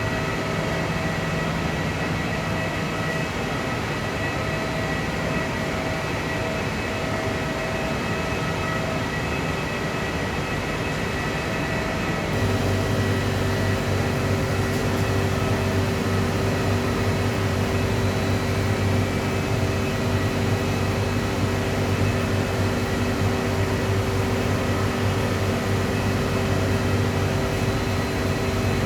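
Industrial machinery running with a steady drone and a held high whine. About twelve seconds in, a deeper hum joins and the noise grows a little louder.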